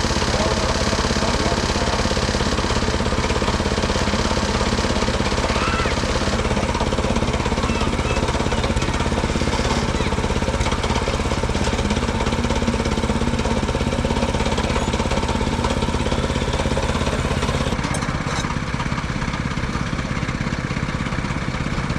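Gasoline engine of a Mechmaxx SM-22 bandsaw sawmill running steadily under power. A little before the end the sound drops slightly and turns duller.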